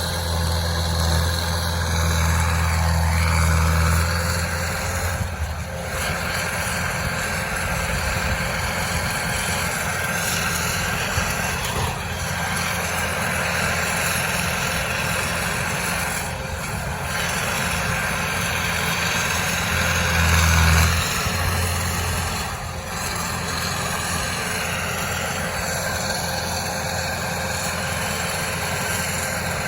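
Heavy equipment engine running steadily, with a louder low rumble during the first few seconds and again briefly about twenty seconds in.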